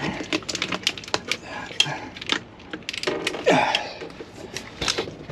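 Irregular sharp clicks and light knocks of plastic and metal parts being handled and screwed back into a truck's gauge-cluster dash, with a brief vocal murmur about three and a half seconds in.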